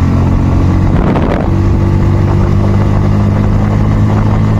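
Bajaj Pulsar N160's single-cylinder engine running under way, heard from the rider's seat. Its note shifts about a second in, then holds steady.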